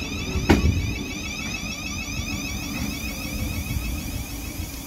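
Thameslink Class 700 electric train rolling close past, a steady low rumble with a sharp click about half a second in. After that the running noise settles to a quieter, even rumble and hiss.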